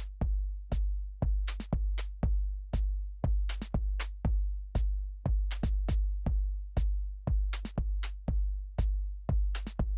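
Background music: an electronic track with a steady drum-machine beat and deep bass hits.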